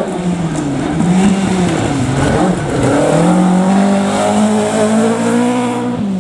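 Mk2 Ford Escort rally car's engine revving hard through a gravel corner. Its pitch dips about two and a half seconds in, then climbs and holds high, over the hiss of gravel spraying from the tyres.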